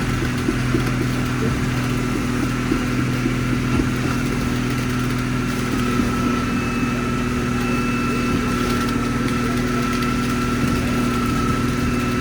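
Diesel engine of a truck-mounted concrete boom pump running steadily during the pour, a constant drone with a thin steady whine above it.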